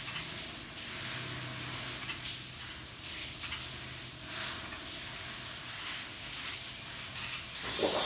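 A steady hiss of ambient background noise over a faint low hum, with soft faint rustles now and then. Near the end a much louder hiss comes in.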